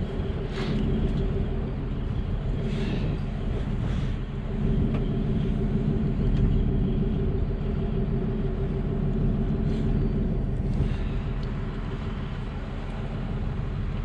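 Steady low hum and rumble of a fishing boat's engine running, with wind and water noise.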